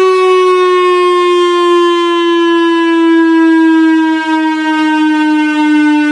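Whelen WPS-3000 electronic storm siren sounding loud, holding one tone with many overtones that slides slowly and smoothly down in pitch.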